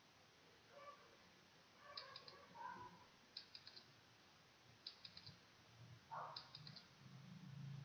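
Faint clicking: four small groups of three or four quick high clicks, about a second and a half apart, over low background hum.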